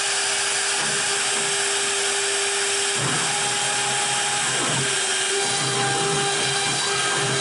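CNC router spindle running at speed as the bit engraves the masked wooden sign: a steady high-pitched whine over a hiss, with a heavier cutting rumble joining in from about three seconds in.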